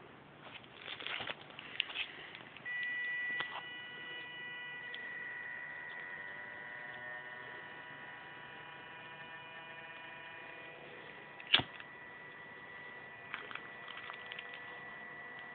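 Small PWM-driven DC fan motor on an Arduino temperature controller whining. A steady high-pitched whine with several overtones starts abruptly about three seconds in, after some handling rustle, and carries on with its overtones shifting slightly as the controller varies the fan speed. One sharp click comes a little past halfway.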